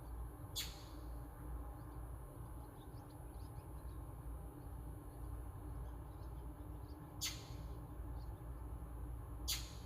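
Three sharp clicks over a steady low hum, the loudest near the end, with faint high chirps in between.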